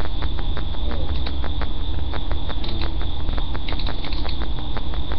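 Rapid, irregular crackling clicks over a steady low hum and a faint high whine, typical of a cheap webcam microphone's own noise.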